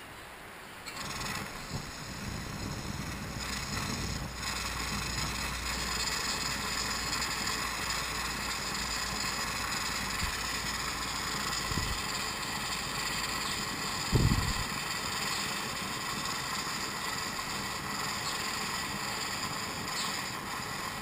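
Coleman G.I. pocket stove, a pumped pressure stove, burning with a steady hiss from its burner under a bowl of melting wax. A short low thump sounds about two thirds of the way through.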